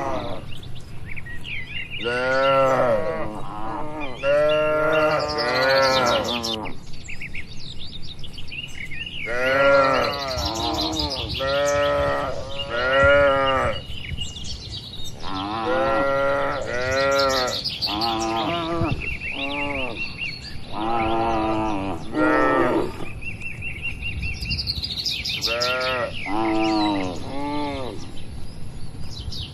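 Cattle mooing: short calls that rise and fall in pitch, coming in quick runs of three or four, several times over. Faint high bird chirps sound between some of the runs.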